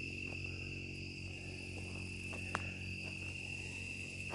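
Crickets calling in a steady, unbroken high trill, over a low steady hum, with a single click a little past halfway.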